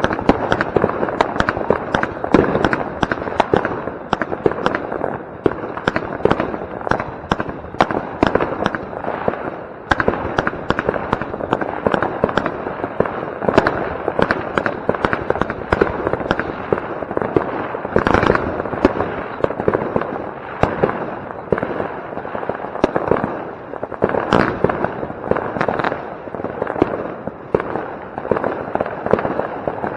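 Consumer firework batteries firing in a dense, continuous run of sharp bangs and crackles, with only a brief lull about ten seconds in.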